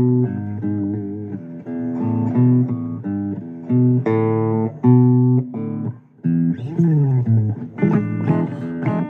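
Blues guitar playing an instrumental passage of plucked notes and chords. There is a brief pause about six seconds in, then a run of falling notes.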